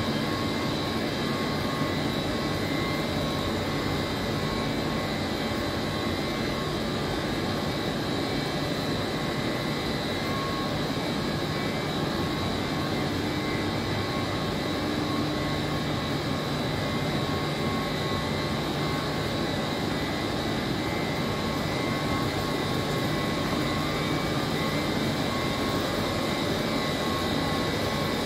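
Steady drone of a running chiller plant: a Trane screw-type chiller with its circulating water pumps, a dense hum with a few thin, steady whining tones over it.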